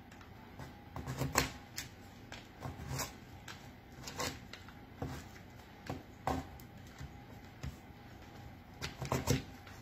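Chef's knife chopping large chocolate chunks on a thin plastic cutting mat. The blade knocks down onto the board in short, sharp, irregular strokes, with pauses between small clusters of cuts.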